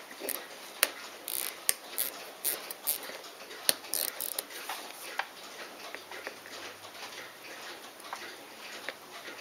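Irregular small clicks and taps of metal watch parts as fingers handle and press on a Poljot Signal alarm-watch movement in a movement holder. The clicks come mostly in the first five seconds and grow sparse after that.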